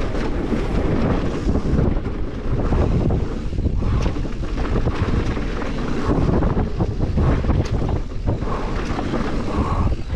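Mountain bike descending a dirt trail at speed, heard through wind buffeting the microphone: a steady low rumble of tyres on the ground with many small knocks and rattles as the bike goes over bumps.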